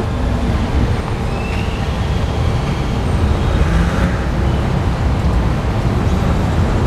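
Steady street traffic noise, with vehicle engines running and most of the sound low down.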